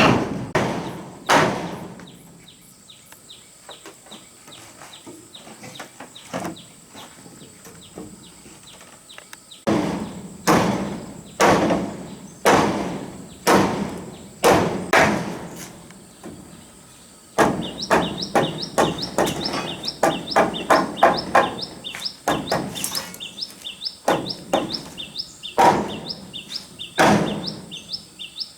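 A hand tool striking wood over and over, as in chopping or hammering on logs. After a quiet stretch come heavy blows about once a second, then a run of quicker, lighter strikes.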